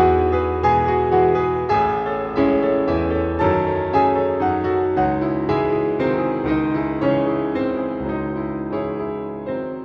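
Background music: a gentle piano piece playing slow sustained chords and notes, fading a little toward the end.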